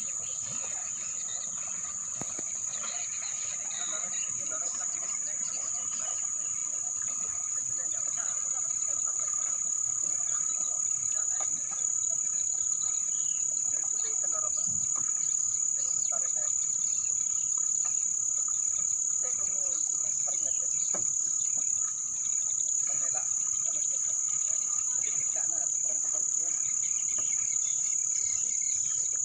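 Insects shrilling in one steady, high-pitched unbroken note, with a fainter lower tone beneath it.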